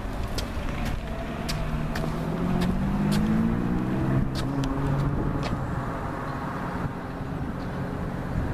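A car engine on the street accelerating, its pitch rising over two or three seconds and then fading away, with scattered sharp clicks throughout.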